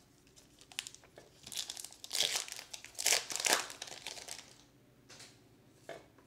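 Topps Gypsy Queen trading-card pack wrapper being torn open and crinkled in a burst of rustling about three seconds long, loudest in the middle. A couple of faint taps follow near the end.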